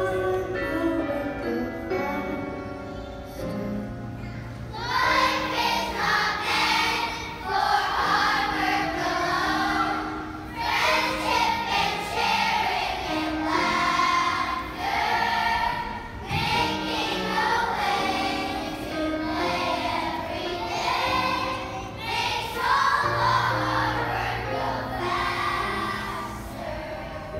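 A chorus of young children singing a song together over instrumental backing music. The music plays alone at first, and the children's voices come in about five seconds in.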